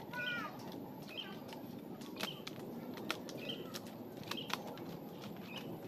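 A bird giving short chirps about once a second, over a low rustling background, with a few sharp clicks.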